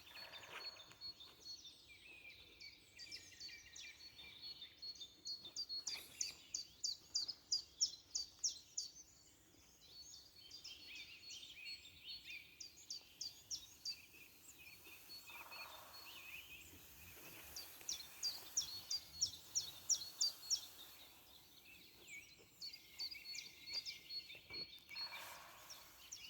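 Several songbirds singing in woodland: a fast run of sharp, high repeated notes comes in three bouts, over other continuous twittering song.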